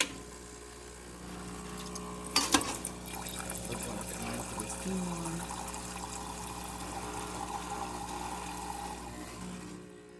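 Isomac espresso machine's newly replaced vibratory pump switches on and runs with a steady hum while water flows through, then stops shortly before the end. There is a brief clatter about two and a half seconds in.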